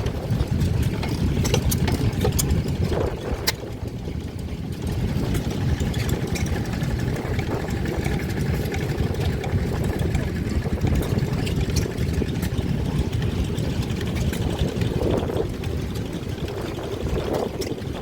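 Vintage stationary engines running steadily, with a dense low engine sound and a few sharper clicks.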